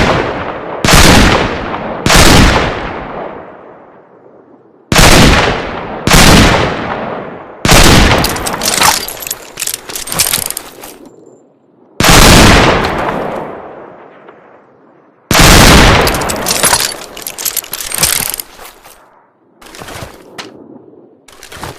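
Revolver gunshots fired one at a time, each a sharp bang with a long echoing tail, about seven in all. Two of them are followed by a few seconds of dense crackling clatter. A few fainter sharp clicks come near the end.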